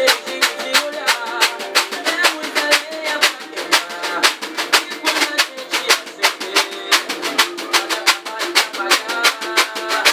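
Pagode music with a reco-reco-style scraper played along, its quick rasping strokes in a steady rhythm over the song.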